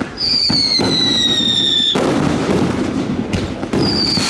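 Fireworks display: a steady barrage of bangs and crackling, with two long whistling fireworks that each slide slowly down in pitch, one near the start and one starting near the end.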